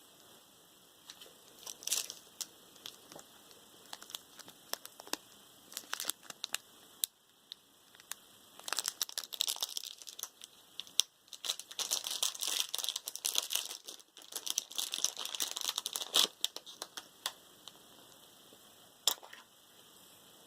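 Packaging being handled during an unboxing: plastic wrapping crinkling and tearing, with scattered clicks and taps. The rustling is busiest through the middle, followed by a single sharp click near the end.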